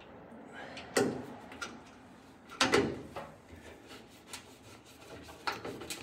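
Clicks and knocks of a license plate light being screwed into a pickup's roll pan with a hand screwdriver: a sharp knock about a second in, a cluster of knocks near three seconds, then lighter ticks as the screws are turned.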